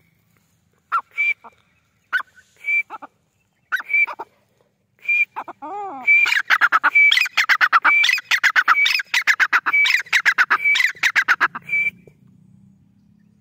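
Grey francolin calling: a few short, separate notes about a second apart, then a fast run of loud repeated notes lasting about six seconds that stops suddenly.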